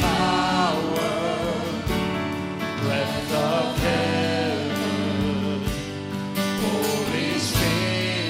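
A Christian worship song performed live: voices singing with instrumental accompaniment.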